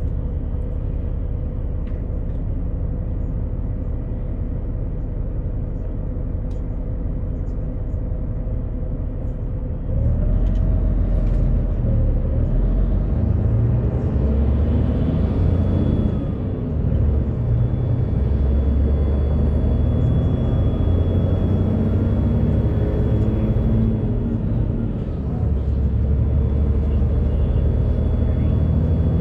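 Cabin sound of a 2011 Daewoo FX116 coach's rear-mounted Doosan DL08S turbodiesel inline-six: a low engine rumble that grows clearly louder about a third of the way in as the bus pulls away and accelerates, dipping briefly twice at gear changes of its six-speed manual gearbox.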